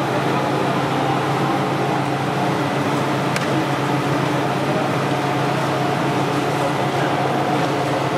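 Plastic string-making extrusion line running, giving a steady mechanical hum with a constant low drone.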